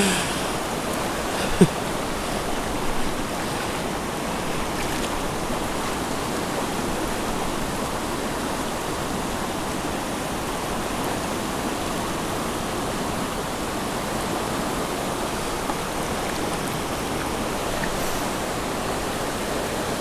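Small mountain creek running steadily, a constant rush of flowing water, with a brief knock about a second and a half in.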